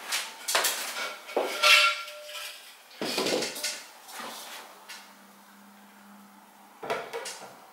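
Glass light-fitting bowl knocking and clinking as it is handled against its plastic cap and the ceiling fixture: a run of irregular knocks, one giving a short ring about two seconds in.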